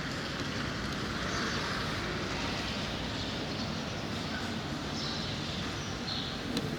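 Steady outdoor rushing ambience, with a few faint high chirps now and then.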